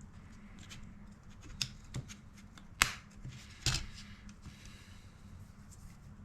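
Small handling sounds from work on a car radio's display assembly: about four sharp clicks or snaps with faint rustling between them, the loudest about three seconds in.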